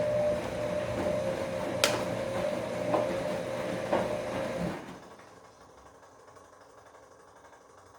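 Bosch Komfort-Klasse washing machine tumbling its drum in the wash cycle: a motor running with a steady whine and a few sharp knocks, stopping about five seconds in as the drum pauses.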